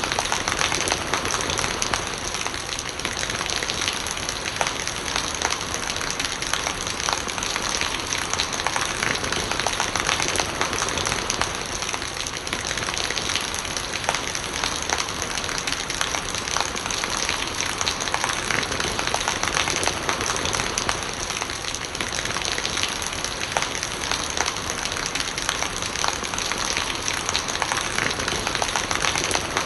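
Steady rain falling, a dense even hiss made up of countless small drop impacts.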